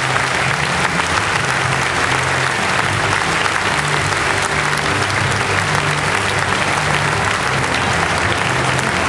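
Audience applauding steadily in a large arena, with music playing underneath.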